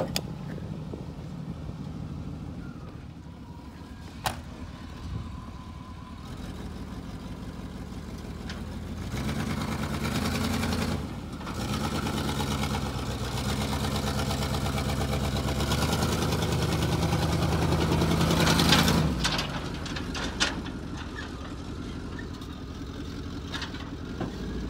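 1995 Chevrolet 3/4-ton pickup engine running. It starts at a low idle with two sharp knocks in the first few seconds, then works harder and louder as the truck is driven and manoeuvred. It is loudest just before settling back toward idle near the end.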